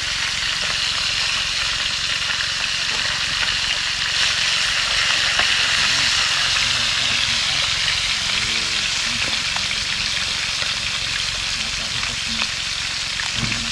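Fish frying in hot oil: a steady sizzle with fine crackling pops, swelling slightly in the middle.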